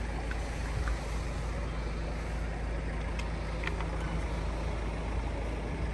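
Steady low rumble of vehicles on the road, with a few faint clicks.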